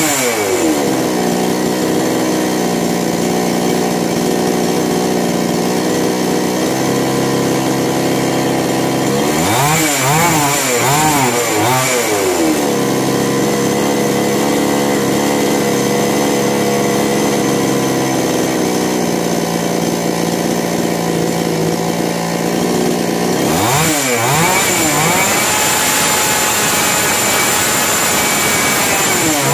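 Kisan Kraft two-stroke chainsaw engine running. It settles to a steady idle, is revved up and down in a few quick blips about ten seconds in, then is revved up and held at high speed near the end before dropping back. The carburetor's idle and high-speed mixture are being tuned.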